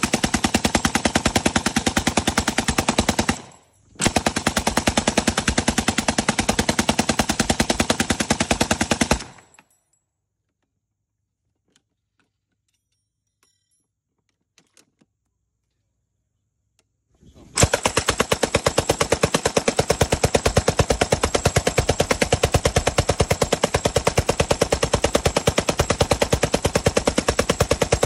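M60D 7.62 mm belt-fed machine gun firing long full-auto bursts: one of about three and a half seconds, a brief break, then about five seconds more. After that comes a quiet stretch of about eight seconds, with a few faint clicks as the gun is handled with its top cover raised. Then an unbroken burst of about ten seconds.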